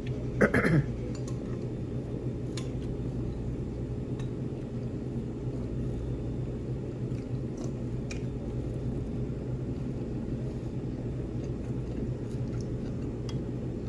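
Tableside eating sounds: faint clinks of cutlery and dishes and soft chewing over a steady room hum, with one short louder sound about half a second in.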